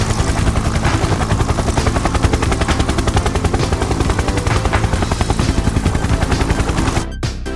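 Helicopter rotor sound effect for an animated attack helicopter: a fast, even chopping that stops about seven seconds in.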